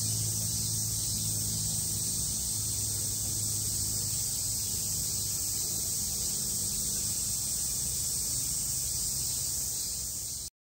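Steady, high-pitched chorus of summer cicadas with a faint low hum beneath; it cuts off suddenly near the end.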